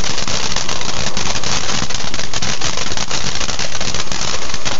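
Ground firework fountain spraying sparks: a loud, steady hiss full of crackles and small pops.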